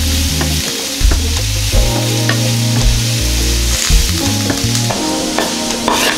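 Vegetables sizzling in a ceramic-coated frying pan while a wooden spatula stirs them, scraping and knocking against the pan now and then, over background music.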